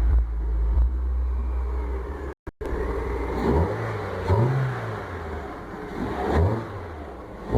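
Peugeot 307 2.0 engine breathing through a Simota aftermarket air filter: it runs steadily, cuts out briefly, then is revved in about four short blips, each rising and falling in pitch.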